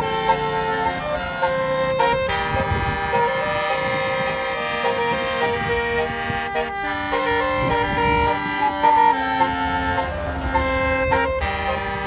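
Tour bus's multi-trumpet Basuri telolet horn playing a tune, several horn tones sounding together and stepping from note to note, with brief breaks about two, seven and eleven seconds in. A low engine rumble runs underneath.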